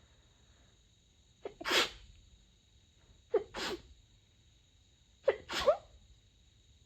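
Three sneezes from a woman in a sneezing fit, about two seconds apart, each a quick sharp catch followed by the main burst, stifled and covered with a light blanket.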